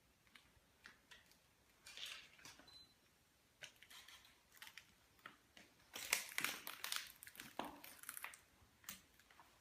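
Irregular crunching and crackling footsteps over debris on the floor of a derelict factory hall, densest and loudest about six to eight seconds in.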